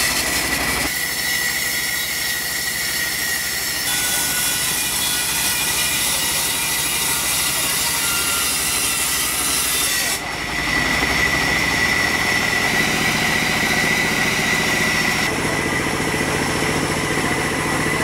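Sawmill saw and machinery running steadily with a high, even whine. The sound changes abruptly several times.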